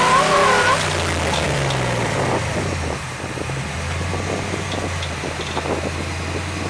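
Off-road vehicle engine running under load, its pitch sliding down over the first couple of seconds and settling to a low steady note, with wind noise on the microphone.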